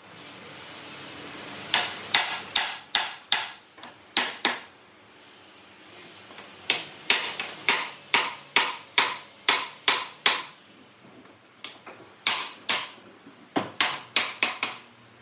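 Hammering in a woodworking job: quick runs of sharp blows, about two or three a second, in three bursts separated by short pauses.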